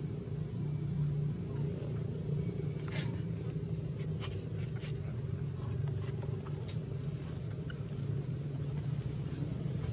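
A steady, even low mechanical hum, with a few faint short clicks around the middle.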